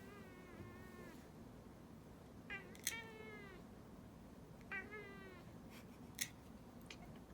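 Domestic cat meowing in complaint while its claws are clipped: three drawn-out, wavering meows, the first already under way. There are two sharp snips of the nail clippers, one as the second meow begins and one on its own near the end.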